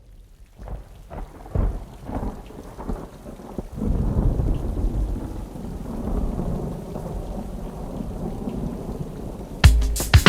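Rain falling with rolling thunder, a low rumble that swells about four seconds in and holds. Near the end, sharp hits come in as the song's beat starts.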